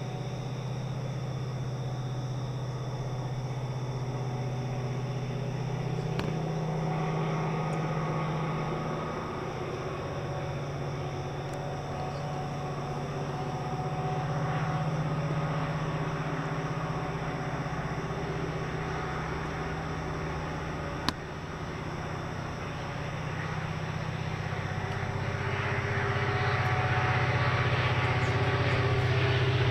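A train heard approaching along the line: a steady low drone that grows louder with a spreading hiss towards the end, with a single sharp click about three quarters of the way through.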